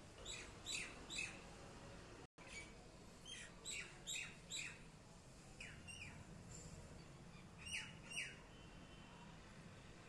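Common myna calling: short, falling notes given in quick bursts of two to four, with pauses of a second or two between bursts.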